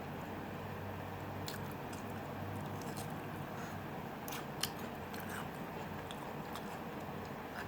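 A person chewing and biting food, with scattered small mouth clicks; one sharper click comes about four and a half seconds in.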